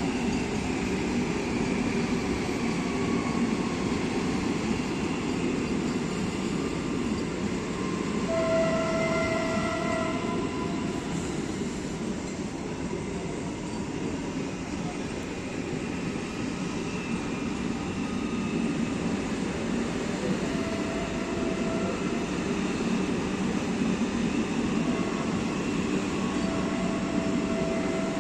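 Train running with a steady rumble; its horn sounds briefly about eight seconds in, again around twenty seconds in, and in a longer blast near the end.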